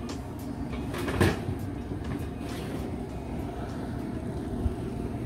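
Metal baking sheet clanking and scraping against the oven's wire rack as it is pulled out, with one sharp clank about a second in and a few lighter clicks, over a steady low hum.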